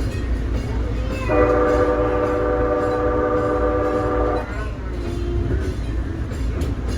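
Horn of Nippon Sharyo P865 light rail car 144 sounding one long blast of about three seconds, a chord of several notes held steady, over a steady low rumble.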